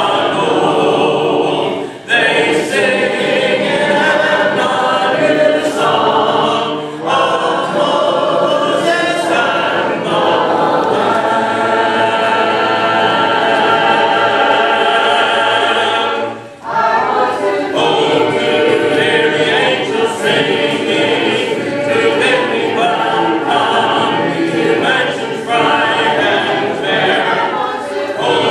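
A congregation singing a hymn a cappella, many voices together with no instruments, with short pauses for breath between lines, most clearly about 2 seconds and 16 seconds in.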